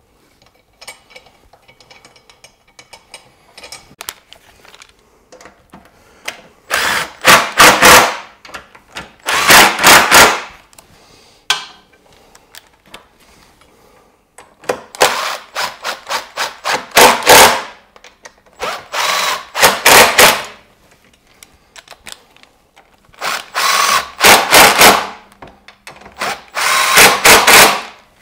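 Cordless impact driver run-in bolts on a motorcycle's tank and bodywork mounts, in six short bursts of rapid hammering. The bursts come in three pairs, one pair after about 7 seconds and one near the end.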